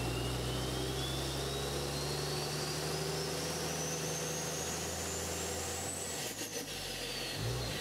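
Logo-intro sound effect: a steady low engine-like rumble under a thin whistle that climbs in pitch for about six seconds, then falls away, with a couple of dull thuds near the end.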